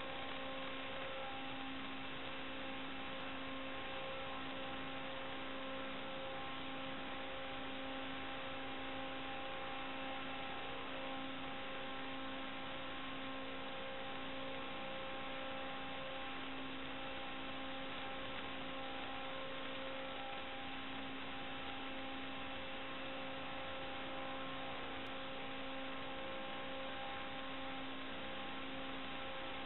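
Steady electrical hum over a hiss, one unchanging buzz with evenly spaced overtones and no rise or fall in pitch or level: noise on the audio channel of an analog FPV video receiver's recording rather than the drone's motors.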